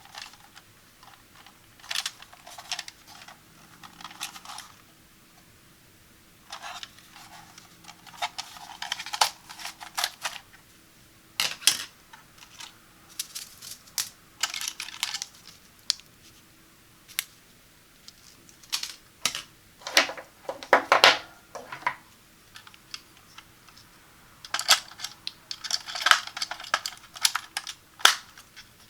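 Close-up handling of a plastic carbon monoxide detector and its packaging: irregular clusters of clicks, taps and crinkles with short pauses. The loudest handling noise comes about two-thirds of the way through.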